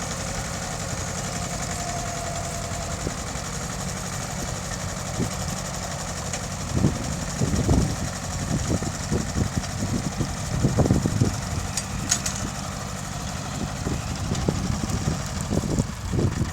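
Mitsubishi tractor engine running steadily, with irregular low thumps and knocks from about six seconds in.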